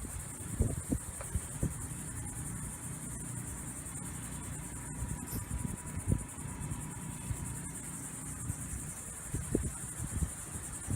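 A steady high-pitched chorus of insects such as crickets, over an irregular low rumble of wind on the microphone with a few soft knocks.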